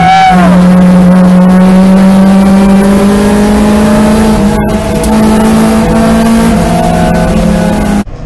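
Mazda Miata's four-cylinder engine at high revs, heard from inside the cabin on track. It rises and falls briefly in pitch at the start, then pulls steadily with its pitch climbing slowly. The note cuts off suddenly near the end to a quieter engine sound.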